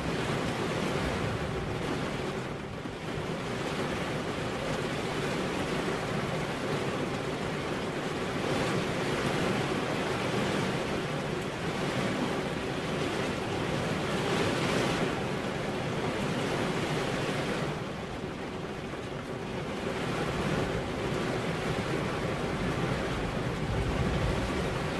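Steady rain falling, a continuous even hiss that swells and eases a little, dipping briefly twice.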